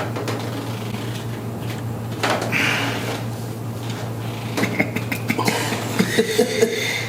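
Hands rubbing and working the muscles during deep soft-tissue massage, with creaks and short knocks, likely from the treatment table, over a steady low hum. A run of short creaks comes in the second half.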